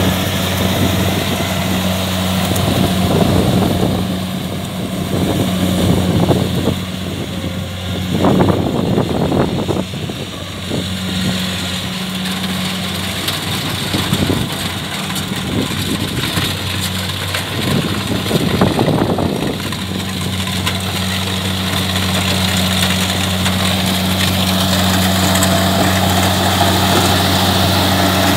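Kubota DC70 combine harvester's diesel engine running at a steady drone, with louder rushing surges twice, roughly a third and two thirds of the way through.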